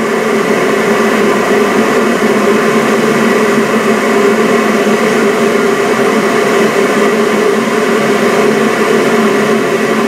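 Kitfort KT-679-1 electric kettle heating water, a steady noise that holds level throughout. The water is still short of the boil, at about 60–70 °C.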